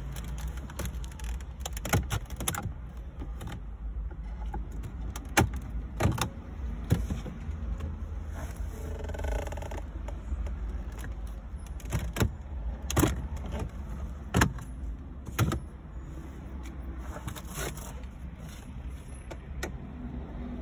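Plastic dashboard trim clips of a 2013 Hyundai Santa Fe popping loose as the panels around the stereo are pried off: a series of sharp clicks and snaps at irregular intervals over a steady low rumble.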